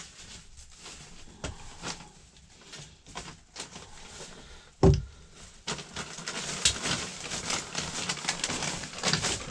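A wooden rolling pin working pie dough on a wooden table, with scattered knocks and clicks, one loud thump about five seconds in, and busier rustling and clatter through the second half.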